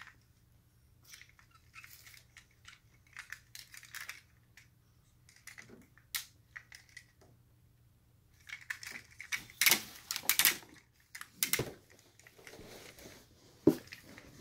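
Hard plastic clicking, snapping and rattling as the parts of a Tobot V transforming car-robot toy are twisted and pushed into place by hand, in scattered bursts, the loudest a little past halfway.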